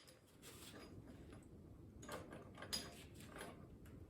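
Faint, scattered clinks and knocks of metal engine parts and hand tools being handled, a few seconds apart, the sharpest near the middle.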